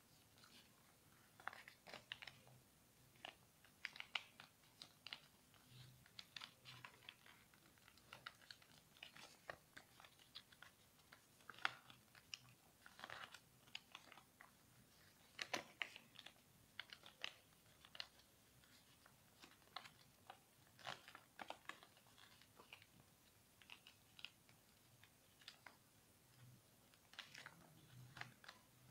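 A sheet of paper being folded and creased by hand: short, irregular crackles and rustles as the paper is bent and pressed flat.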